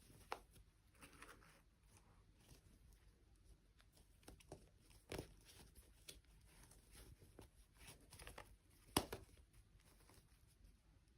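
Quiet handling noises: three sharp taps, the loudest about nine seconds in, with faint rustling between.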